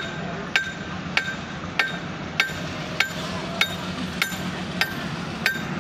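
Railway warning bell striking at an even beat, about one and a half strikes a second, each strike ringing briefly. A steady low hum runs underneath.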